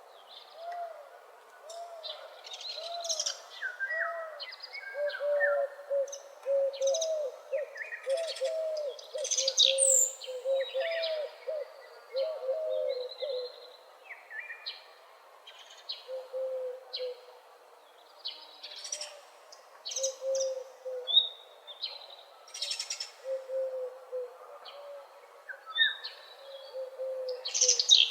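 Dawn chorus of several wild birds singing: many high chirps and trills from different birds over one lower-pitched bird repeating short, rising-and-falling notes in quick succession, which come more sparsely after about halfway.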